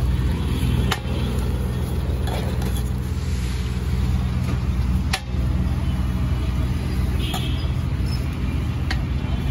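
Street traffic noise: a steady low hum of motor-vehicle engines, with sharp clicks about a second in, about five seconds in and near the end.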